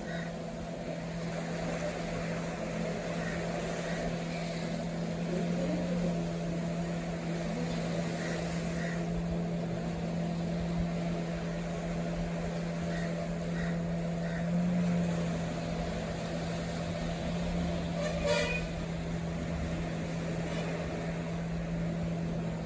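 A steady low engine hum that holds one pitch throughout and stops abruptly at the end, with a brief sharp high sound about eighteen seconds in.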